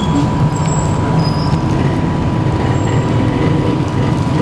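Steady low rumble of motor traffic or an idling engine, with a thin steady high tone running through it.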